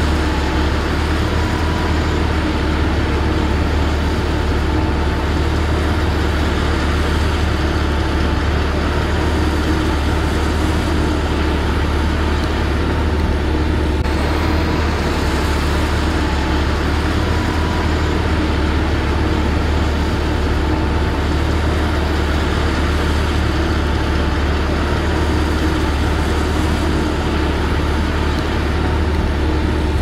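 Heavy engine of a water well drilling rig running steadily at work: a loud, unbroken low hum with faint steady tones on top.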